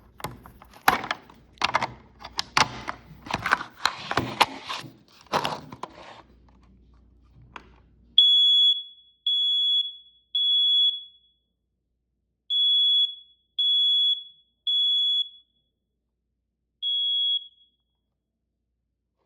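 BRK 9120B smoke alarm sounding: shrill single-pitched beeps in the three-beep temporal pattern, two groups of three and then one lone beep. Before the beeping, about six seconds of clicks and knocks from handling the alarm.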